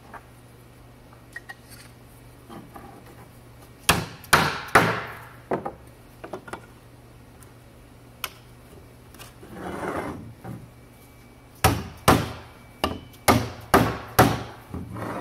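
Mallet knocking aluminum tube extrusions onto their connectors: a few sharp knocks about four seconds in, a brief scraping sound around ten seconds, then a quick run of about eight knocks near the end.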